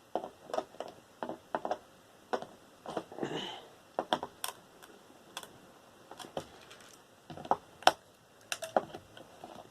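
Irregular clicks, taps and light clatter as small aluminium parts are handled and pulled off a desktop computer tower being taken apart, with a brief scrape about three seconds in.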